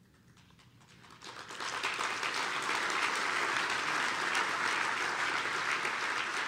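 A large audience applauding. It starts about a second in, swells quickly, then holds as a steady round of clapping.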